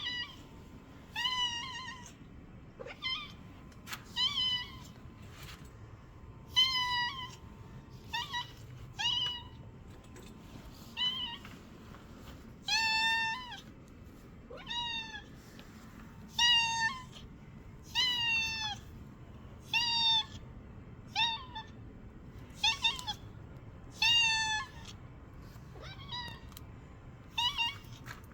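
A domestic cat meowing over and over, around twenty separate meows, some short and some drawn out, with brief gaps between them. It is the calling of a cat left alone and lonely.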